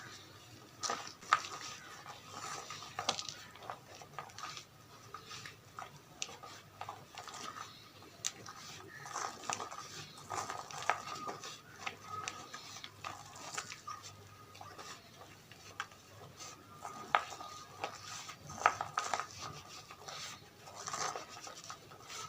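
Dyed gym chalk mixed with cornstarch being pressed and crumbled by hand, giving irregular squeaks and small crunching clicks.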